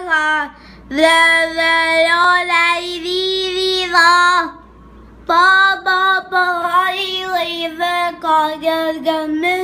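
A child singing a melody in long held notes and sung phrases, pausing briefly about halfway through.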